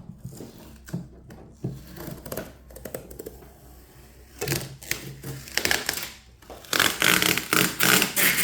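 Packaging being handled and pulled apart. Scattered light clicks and knocks come first, then louder rustling and ripping in quick bursts over the last couple of seconds, as tape and wrapping come off.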